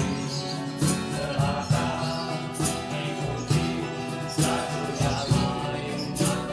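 Background music: a band's song with guitar and a steady beat of about one hit a second.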